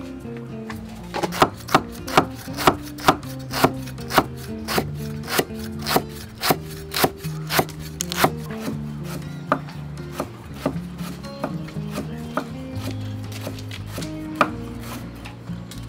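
A broad cleaver chops lemongrass on a wooden chopping board in sharp, even strokes about two a second. The strokes start about a second in and grow softer and sparser after the middle, with a last single chop near the end. Soft instrumental background music plays underneath.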